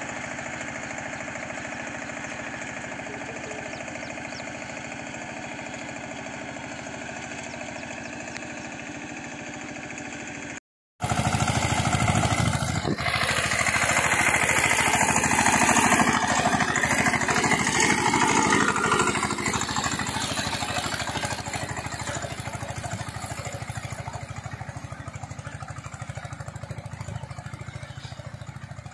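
Single-cylinder diesel engine of a Massey Ferguson 5118 compact tractor running steadily under load as it works the soil. After a brief dropout about eleven seconds in, it comes back louder and noisier as the tractor drives a rotavator between crop rows.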